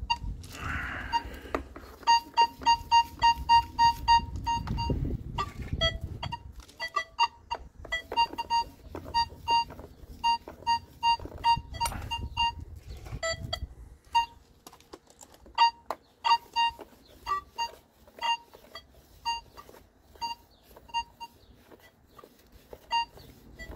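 Nokta Makro Legend metal detector sounding rapid runs of short, same-pitched target beeps as it picks up a coin pushed into a depth-test block, signalling a detected target. The beeps are densest in the first few seconds and come sparser and fainter in the second half.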